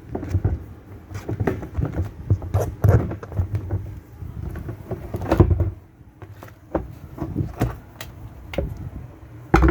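Irregular knocks, taps and clicks of washing-machine parts being handled and fitted by hand.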